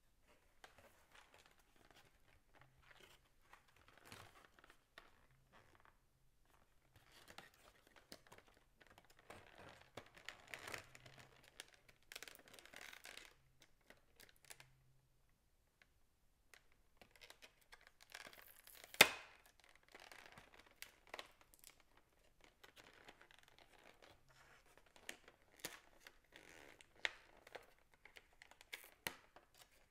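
Thin clear plastic packaging bags being pulled open and handled: irregular crinkling and tearing rustles, with a single sharp click about two-thirds of the way through and a few lighter clicks near the end.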